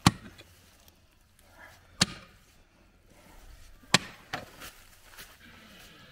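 Pick axe chopping into rocky, sandstone-filled soil while a hole is dug out: three sharp strikes about two seconds apart, with a few lighter knocks after the third.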